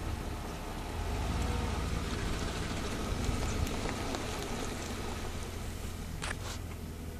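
Steady low hum of an idling vehicle engine under a hiss of wind noise. Two short sharp clicks come near the end.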